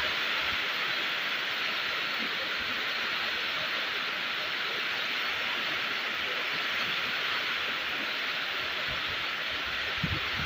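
Steady rain falling outdoors, an even hiss of many drops, with a few soft low knocks of heavier drops and one slightly louder knock near the end.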